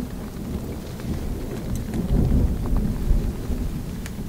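Thunder from an approaching storm rumbling low and rolling, swelling about two seconds in.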